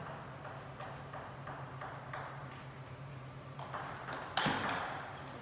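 Table tennis rally: the ball clicking off the bats and the table in a quick run of about three hits a second. About four and a half seconds in comes one louder, longer burst of noise.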